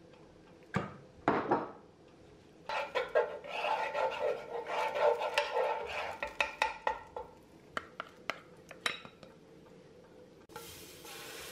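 A wooden spatula scraping and tapping across the bottom of an electric skillet, spreading cooking oil, after a few short knocks. Near the end a steady hiss comes in: the hot oil sizzling.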